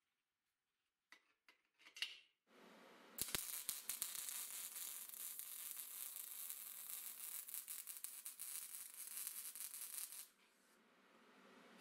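A few light clinks of steel parts being handled, then a MIG welding arc crackling and sizzling steadily for about seven seconds before it cuts off, leaving a faint hiss.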